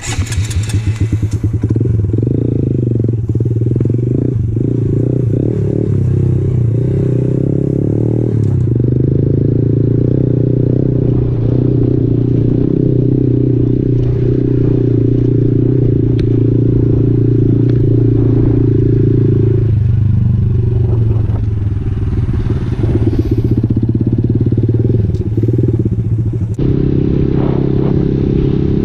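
Honda MSX 125's single-cylinder four-stroke engine running as the motorcycle is ridden, its note shifting in a few steps along the way.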